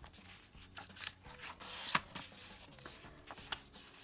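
Paper pages of a small booklet being turned by hand: soft rustles and a few sharp page flicks, the sharpest about two seconds in.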